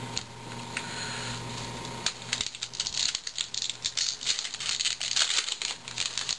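Stack of paper baseball cards being handled and flipped through by hand, a quick run of light clicks and rustles starting about two seconds in.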